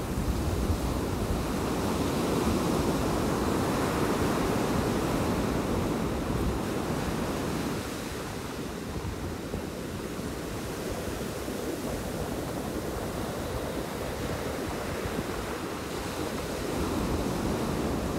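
Small sea waves washing up the beach, foam rushing and hissing over wet sand. The surf swells in the first seconds, eases off about eight seconds in and builds again near the end.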